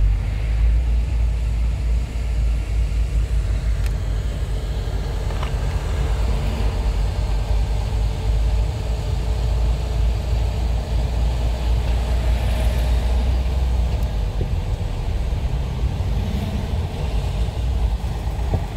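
Steady low rumble of road and engine noise heard from inside a car driving slowly in traffic.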